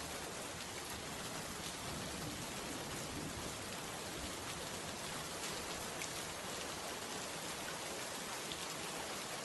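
Rain falling in a steady hiss, with scattered taps of single drops.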